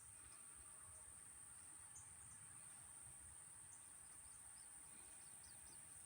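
Near silence: a faint steady high-pitched hiss, with a few tiny, faint high chirps scattered through it.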